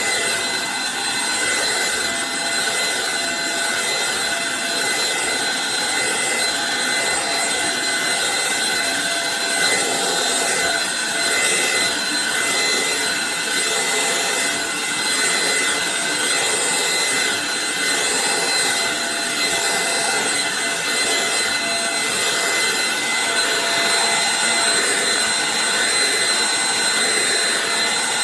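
Eureka NES215A Blaze stick vacuum running steadily: the motor's high whine over the rush of air.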